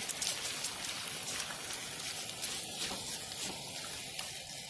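Chicken breast strips frying in butter in a nonstick pan: a steady sizzling hiss with fine crackles.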